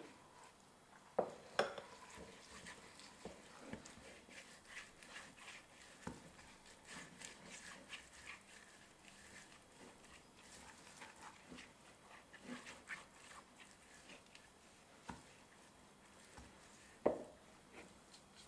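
Silicone pastry brush oiling the inside of a plastic mixing bowl: faint, quick strokes and dabs against the bowl wall, with a few light knocks near the start and a sharper one near the end.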